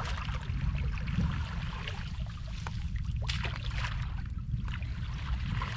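Shallow water sloshing and trickling, with scattered small splashes, over a steady low rumble.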